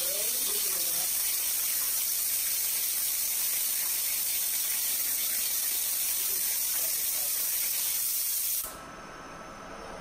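Ultra-high-pressure waterjet nozzle firing into a coffee pod: a loud, steady high hiss as water sprays out around the pod and mug, cutting off suddenly near the end.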